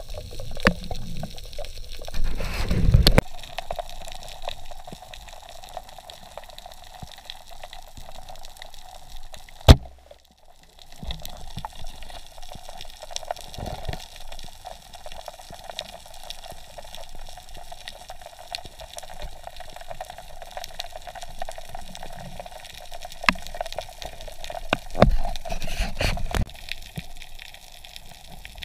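Water moving around a submerged camera on a night snorkel dive: a steady watery hiss with small clicks and pops. Heavier rushes of water come about two seconds in and again near the end, and one sharp, loud click comes about ten seconds in.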